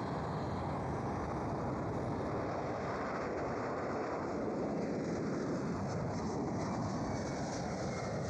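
Jet aircraft engine noise, a steady even rumble with a faint high whine, holding level without rising or falling.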